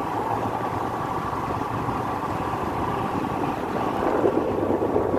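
Motorcycle engine running steadily while the bike rides along the road, heard from the rider's seat, getting a little louder near the end.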